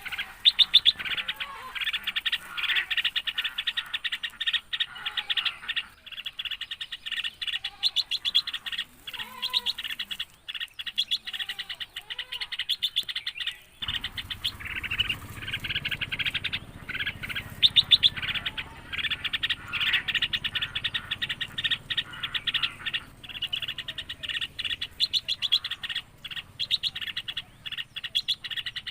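Birds chirping rapidly and without pause in a dense high twittering, with a few slower, lower curved calls in the first half. A low rumble joins in about halfway through.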